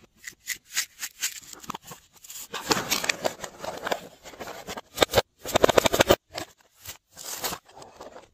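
Close-up handling of a paper-craft box and plastic slime trays: a series of sharp clicks and crackly rasping rustles, densest about a third of the way in and again just past the middle.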